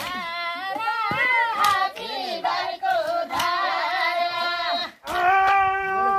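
Voices singing a traditional Nepali field song sung while weeding maize, in long drawn-out phrases with held notes; one phrase ends about five seconds in and a new one starts at once. A few sharp knocks sound in the first half.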